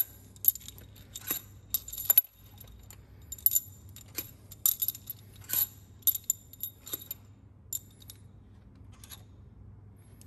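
Long steel cylinder head bolts clinking against each other as they are lifted out of the head and gathered in a hand: a string of light metallic chinks with a short ring, frequent for the first seven seconds and sparser after.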